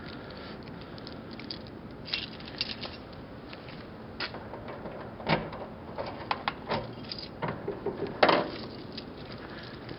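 Keys jingling and the metal lock and handle of a Land Rover Series IIA rear door clicking and clunking as the door is locked, with a string of short knocks; the sharpest come about five seconds in and again about eight seconds in.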